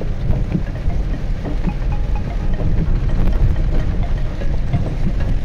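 Inside a car's cabin while driving in heavy rain: a steady low rumble of engine and road, with scattered taps of rain on the windshield.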